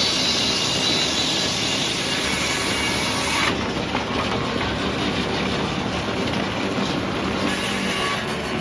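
Wood-cutting machine running with a loud, high cutting noise that stops abruptly about three and a half seconds in, after which the machine runs on steadily.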